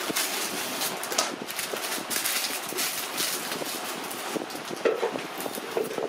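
Piping bag crinkling and rustling in the hands as it is filled and squeezed, with irregular crackles over a steady background hiss.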